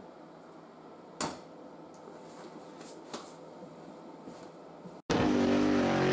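Quiet workshop room tone with a sharp knock about a second in and a few lighter clicks as a small fan heater is set down on the floor. About five seconds in, a much louder transition sound effect starts suddenly, with several tones sliding slowly down in pitch.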